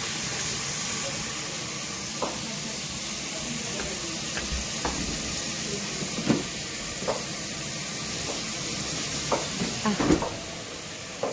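Steady sizzling hiss of food frying in a pan on a gas stove, with scattered light clicks and knocks of utensils and dishes. A few louder knocks come about ten seconds in, and the hiss drops away just after.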